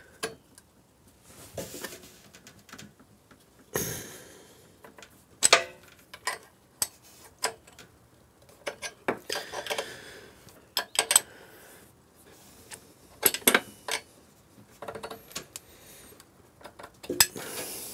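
Hand tools clinking and tapping on metal in irregular, sharp knocks while the exhaust manifold-to-hot-tube joint is worked apart to free its bolt.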